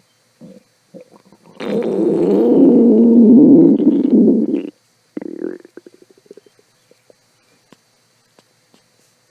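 A hungry, empty stomach growling: a few small gurgles, then one loud, wavering rumble lasting about three seconds. A shorter gurgle and a trail of small fading pops follow.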